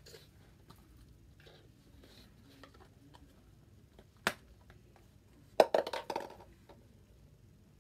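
Watery jiggly slime being stretched and squished by hand for ASMR: a few faint sticky clicks, one sharp pop about four seconds in, and a quick run of crackling pops and squelches just before six seconds.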